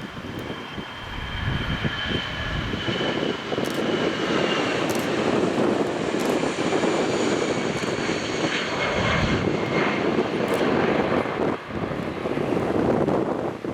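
Airbus A320 twin-jet airliner taking off, its engines at takeoff power: a steady jet roar that swells about a second in. High whining tones slowly fall in pitch as it passes.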